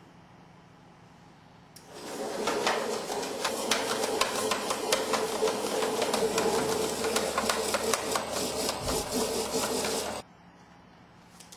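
Hefter OL 400 electric letter-opening machine running as a stack of envelopes is fed through its cutter: a dense mechanical whirr and clatter full of rapid ticks. It starts about two seconds in and cuts off suddenly about two seconds before the end.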